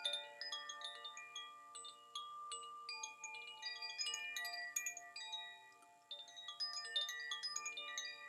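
Zaphir Sufi wind chime, tuned to D, F and A with a G, ringing as its rods are struck again and again, the notes overlapping and sustaining into one another.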